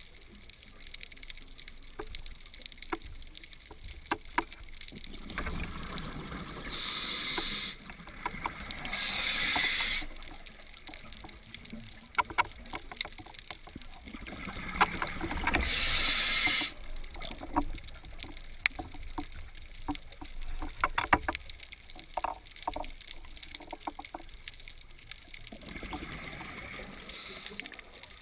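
Underwater: a diver's exhaled air bubbles rushing out in bursts of about a second each, three close together in the first half and one near the end, over a low hiss with scattered sharp clicks.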